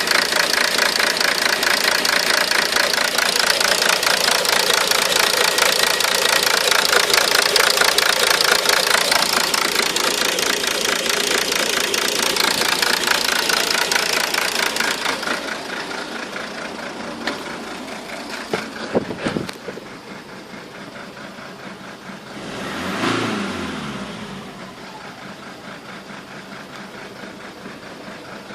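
Car engine idling roughly and unevenly, the sign of an intermittent idle fault whose cause the owner has not found. The engine sound is loud and pulsing for the first half, then falls away to a lower level, with a few sharp clicks and one brief swell and fall later on.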